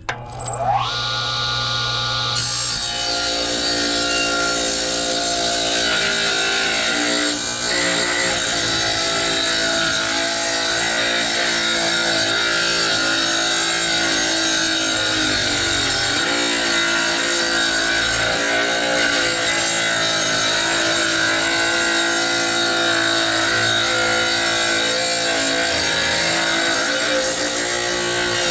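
Small benchtop tile saw's motor spinning up with a rising whine, then running steadily as its blade rips lengthwise through a 1x3 wooden board: a continuous motor whine under a rasping cutting noise.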